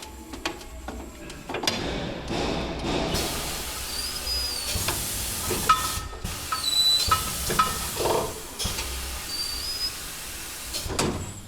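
Pressurised air hissing out steadily for several seconds, with a few brief whistles and clicks in the tire-changing work.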